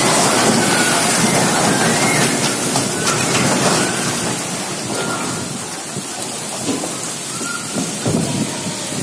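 Heavy rain and strong wind of a whirlwind storm: a steady, loud rush of noise that eases a little about halfway through.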